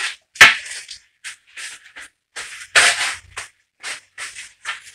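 Handling noises while cleaning gear is picked up: one sharp clack about half a second in, then a run of short scratchy rustles, like a paper towel being crumpled.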